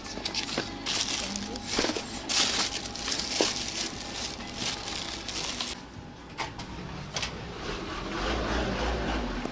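Thin plastic carrier bag rustling and crinkling as items are packed into it, with a few sharp clicks. A low rumble comes in near the end.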